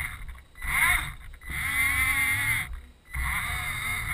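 Small robot's electric drive motors whining through their gears, the pitch wavering with speed. It cuts out briefly three times as the motors stop and start while the robot steers through the course.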